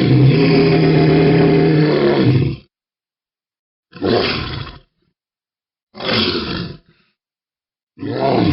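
Monster roar sound effect: one long, deep roar, then three shorter roars about two seconds apart.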